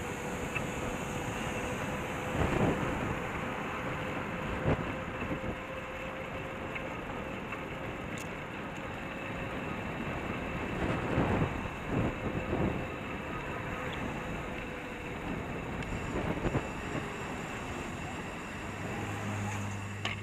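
Wind and road noise on a bicycle-mounted camera while riding, a steady rumble with a few louder gusts or jolts.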